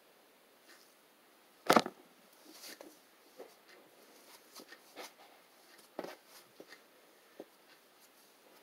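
Scattered light taps and clicks, with one sharp knock just under two seconds in.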